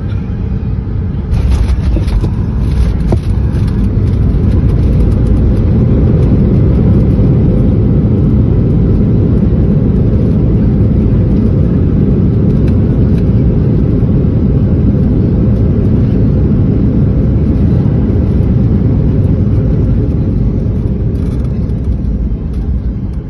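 Boeing 737-800 touching down and braking, heard from inside the cabin. About a second in the wheels meet the runway with a sudden jump in noise, then a loud steady roar of reverse thrust and runway rumble as the jet slows hard, easing off near the end.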